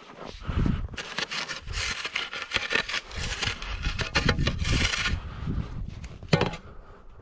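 A spade scraping through snow and flinging it aside, with crunching of snow underfoot, and one sharp knock a little after six seconds in.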